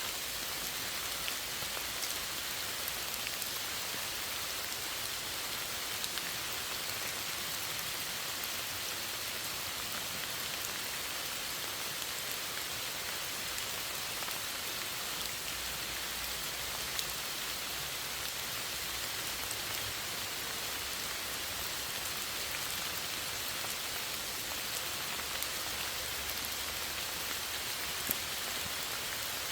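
Steady rain falling, an even hiss of many drops with a few louder single drop ticks standing out.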